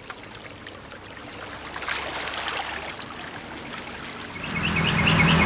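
Shallow seawater washing and trickling among rocks at the water's edge. Near the end, a steady low engine hum fades in and grows louder.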